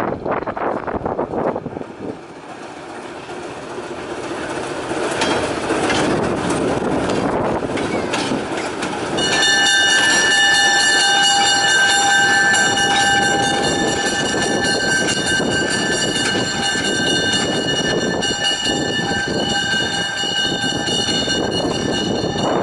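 Alco diesel switcher locomotive running as it rolls past, growing louder as it approaches. From about nine seconds in, a steady high-pitched tone sounds over the engine and holds to the end.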